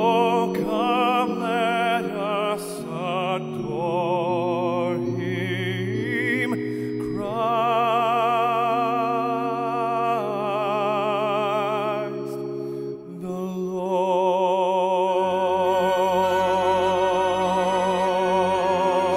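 Slow classical-style music with long held notes and a wide vibrato. A deeper low part comes in about two-thirds of the way through.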